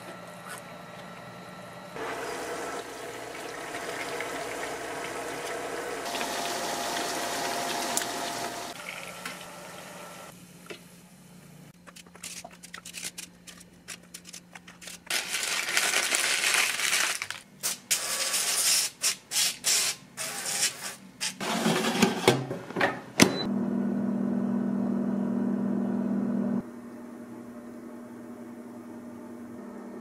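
Kitchen handling sounds: a stretch of irregular rustling and clattering as parchment paper and chicken pieces are moved around in a wire air-fryer basket with metal tongs. This ends in a sharp knock and is followed by a steady low hum for a few seconds.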